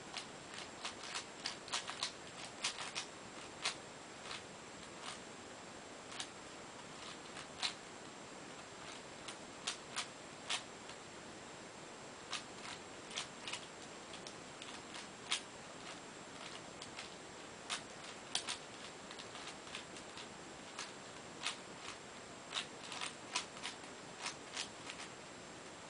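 Cube4You 3x3x7 plastic cuboid twisty puzzle being turned by hand: irregular clicks and clacks of its layers snapping round, sometimes several in quick succession, over a faint steady hiss.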